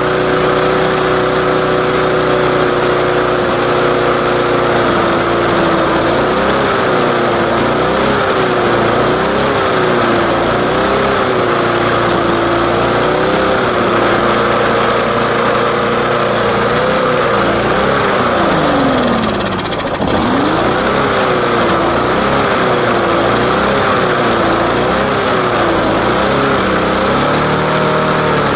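Briggs & Stratton 3.75 HP lawnmower engine running on straight paint thinner. Its speed holds steady for about five seconds, then wavers up and down about once a second. About two-thirds of the way through it sags sharply, nearly dying, then picks back up and carries on wavering.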